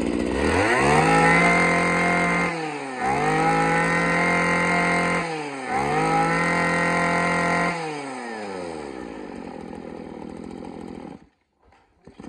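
Maruyama BC23 brush cutter's small two-stroke engine revved three times, each rev rising quickly, held about two seconds and falling back, then settling to a steady idle. It runs smooth and even, 'very round' in sound, a sign of a healthy engine. The sound cuts off about eleven seconds in.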